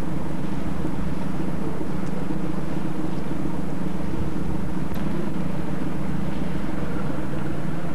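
Steady low drone of a car ferry's engines, heard from on board, with wind noise on the microphone.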